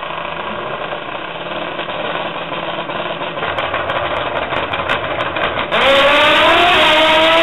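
Drag-racing motorcycle engine running on the starting line, then launching at full throttle with a sudden jump in loudness about six seconds in; its pitch climbs, drops once at a gear change, and climbs again.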